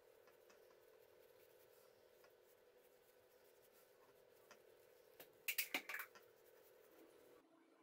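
Paper towel rubbing and crinkling against a vinegar-soaked egg as the leftover shell residue is wiped off. It is mostly faint, with a short cluster of louder crinkles and scrapes about five and a half seconds in, over a faint steady hum.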